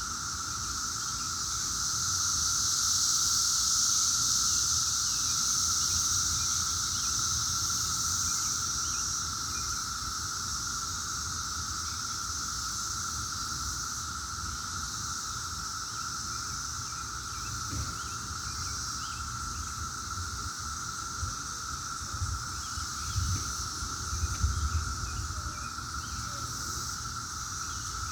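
Chorus of Brood X periodical cicadas: a steady droning hum, with a higher hiss that swells a few seconds in, then eases off. A few low bumps near the end.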